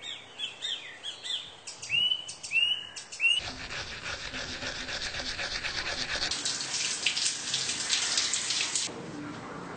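Birds chirping in short repeated calls, then a toothbrush scrubbing teeth in quick strokes, then shower water running, which stops near the end.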